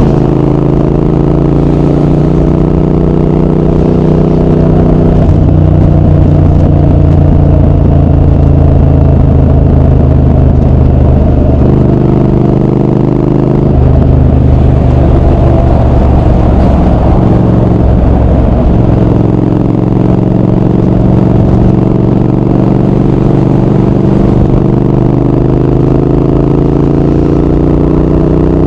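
Triumph Speed Twin 1200's 1200 cc parallel-twin engine and exhaust riding on the road, pulling through the gears. The pitch climbs, drops at a shift about five seconds in and again near the middle, then rises steadily through the last third.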